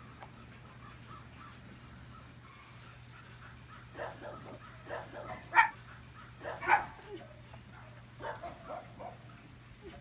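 Dog barking, a run of short barks starting about four seconds in, with two louder barks in the middle.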